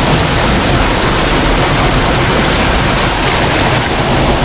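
Creek water rushing loudly and steadily through a culvert as its beaver-dam debris plug starts to break loose.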